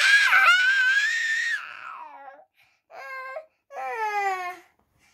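A toddler's loud, high-pitched squeal lasting about two and a half seconds, then two shorter wordless vocal sounds that fall in pitch; the child is smiling, so it is a playful squeal, not crying.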